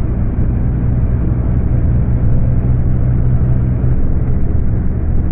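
Scania K250UB city bus's diesel engine running under way at high revs, a steady drone with a slight change in tone about four seconds in, heard on board through a phone microphone.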